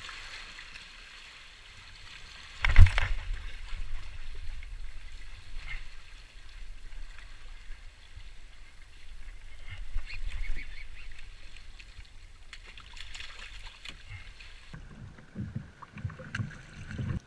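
Waves splashing and washing against the hull of a wrecked concrete ship beside a kayak, with wind rumbling on the microphone. There is one sharp, loud knock about three seconds in.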